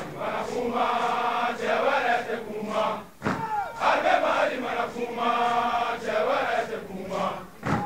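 Soldiers chanting in unison, two similar sung phrases of about two seconds each, with a short sharp accent between them about three seconds in.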